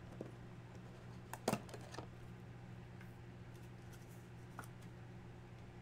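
Faint handling of a trading card in its plastic sleeve and top loader: a few soft clicks and rustles about a second and a half in and again near two seconds, over a steady low hum.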